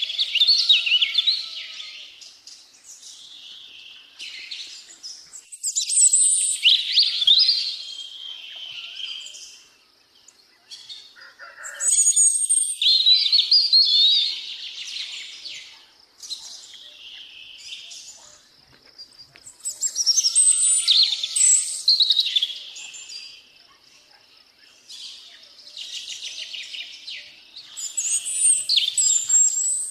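Songbirds singing: loud phrases of rapid, high chirps and trills, each two to three seconds long, repeating every six to eight seconds with quieter chirping in between.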